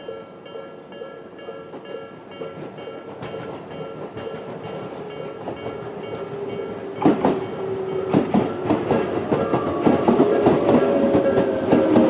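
Level-crossing electronic bells (Tobu 'sound B') ringing at about three strikes a second, while a Tobu 20400-series electric train approaches and its rail noise slowly rises over the bells. From about seven seconds in, loud wheel clacks over rail joints and a tone falling in pitch come in as the train reaches the crossing.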